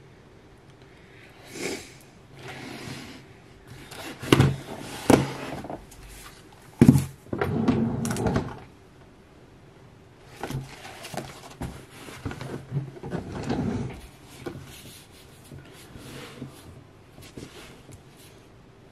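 A desk drawer being opened and rummaged through. There are a few sharp knocks and clatters of things being moved, loudest about four to seven seconds in, then softer rustling and handling that dies down in the last few seconds.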